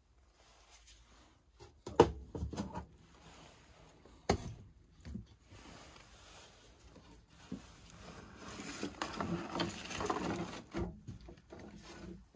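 A few sharp knocks, the loudest about two seconds in and another about four seconds in, then several seconds of rustling and shuffling as someone moves about and handles things.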